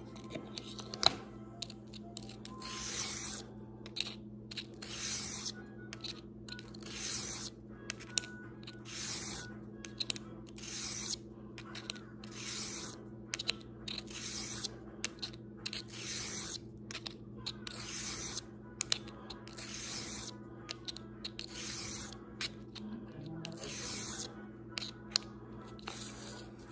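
Steel broadhead blade being drawn across a 1000-grit sharpening stone in slow, even strokes, each a short gritty scraping hiss, about one every one and a half to two seconds. A single sharp click about a second in.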